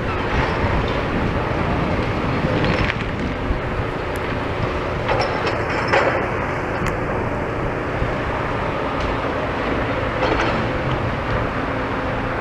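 Demolition excavators' diesel engines running steadily, with scattered clanks and knocks as they break up steel-reinforced concrete.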